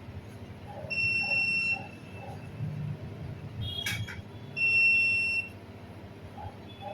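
An electronic beeper sounds twice, each a steady high beep of about a second, with a short clatter of small clicks between the two beeps.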